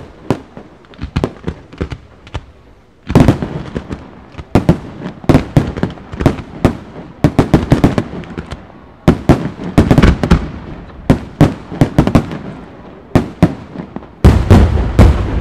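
Aerial firework shells launching and bursting in rapid volleys of sharp cracks and bangs. Two very loud booms, about three seconds in and near the end, are each followed by rumbling.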